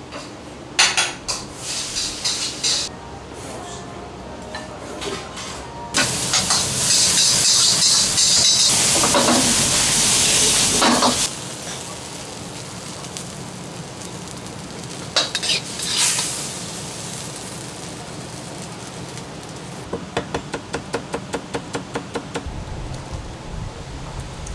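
Restaurant cooking sounds: a few clinks of tableware, then a loud stir-fry sizzle in a carbon-steel wok for about five seconds, with the metal ladle clattering in the pan. Near the end comes a quick run of light, regular strikes.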